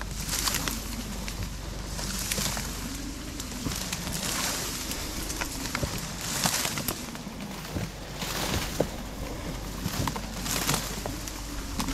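Dry reed stalks swishing and scraping against an inflatable kayak as it is pulled through a dense reed bed by hand. The rustle surges about every two seconds, with small clicks and snaps from the stalks.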